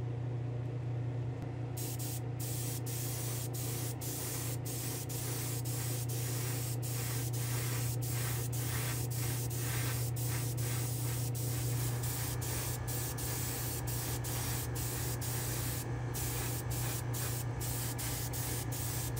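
Compressed-air spray gun hissing as it sprays 2K urethane clear coat, the hiss broken by many short pauses between passes, over a steady low hum.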